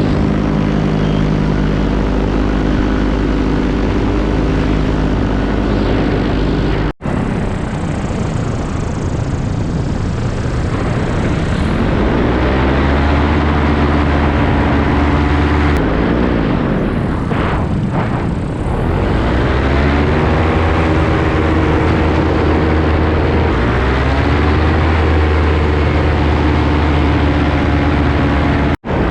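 Paramotor engine and propeller running in flight, a steady drone whose pitch steps up and down with the throttle, rising a few seconds in after a brief cut. Around two-thirds of the way through, a passing sweep of sound crosses the drone.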